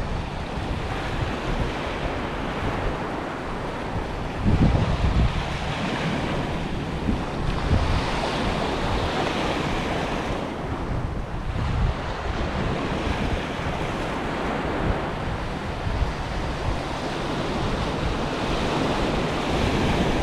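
Sea surf washing onto the shore as the tide comes in, a continuous rushing with swells every few seconds. Wind buffets the microphone with low rumbles.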